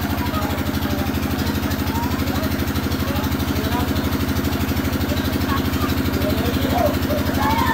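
A motor running steadily at one speed: a low hum with a fast, even throb that does not change.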